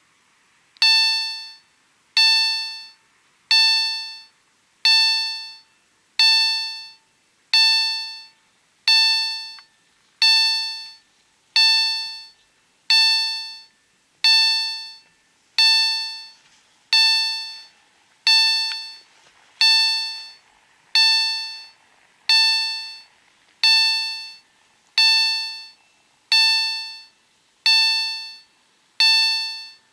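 Electronic level-crossing bell (EHL type, SPA-1 ZWUS crossing system) starting up about a second in and then striking repeatedly, about once every 1.4 seconds, each ding sharp and fading away. It is the crossing's warning that it has been activated for an approaching train.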